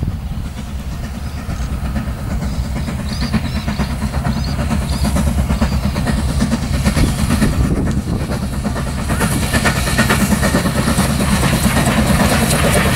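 Steam locomotive hauling a train towards the listener, its running rumble and exhaust growing steadily louder as it draws near.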